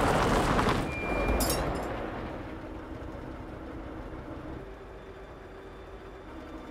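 Engine of an old flatbed truck running as it drives away, the sound fading out over the first couple of seconds into a low steady hum.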